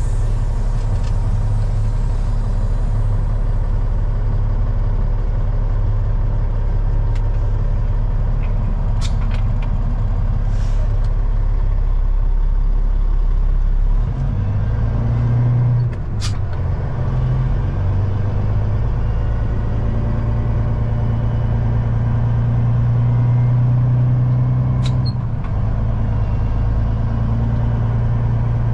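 Semi truck's diesel engine running steadily, its note changing several times from about halfway through. A few short, sharp sounds are heard over it.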